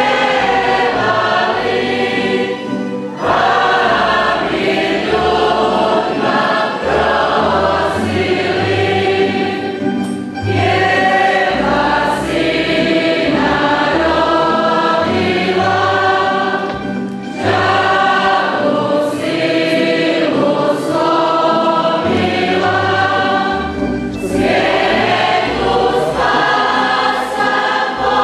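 A large group singing a Croatian Christmas carol together in a church, in long sustained phrases with a short breath break about every seven seconds.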